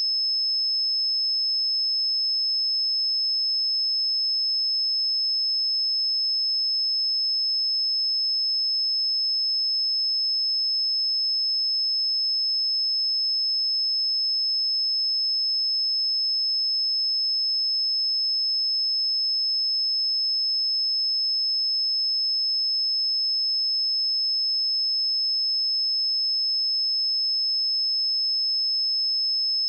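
A steady, continuous 5208 Hz sine-wave test tone, a single high-pitched pure tone at constant loudness.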